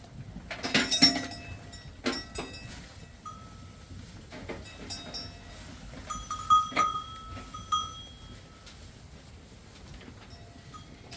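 Livestock bleating from a flock, one loud call about a second in, with small animal bells ringing and clinking at times, clearest later on.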